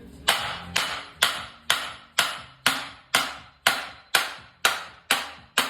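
Evenly paced hammer blows on metal, about two a second, each ringing briefly. They are driving a seized rear wheel hub and bearing out of a Subaru Impreza's knuckle.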